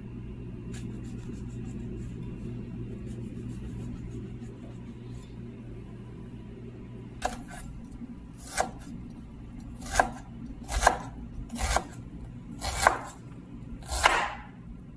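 Chef's knife chopping red onion on a bamboo cutting board: about seven sharp chops, roughly one a second, starting about halfway through. A steady low hum runs underneath.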